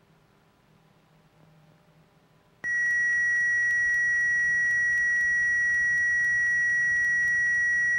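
A steady, high-pitched electronic tone from the AT-38C's cockpit audio switches on sharply about two and a half seconds in and holds at one unchanging pitch.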